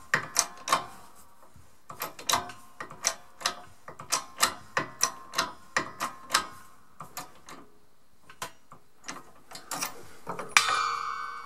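Shop press being pumped to drive a soft crankshaft bushing into an engine crankcase: a regular run of sharp metallic clicks, about three a second, thinning out after about seven seconds. Near the end comes one loud metal clank that rings on.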